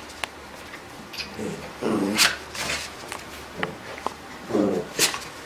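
West Highland White Terrier vocalising in rough play with a cat: two longer low calls, about two seconds in and again near the end, each topped by a short sharp yip.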